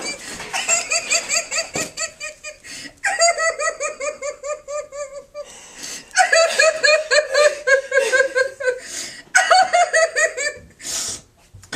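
A woman laughing uncontrollably in four long bouts of rapid, high-pitched pulses, about five a second, with gasping breaths between the bouts.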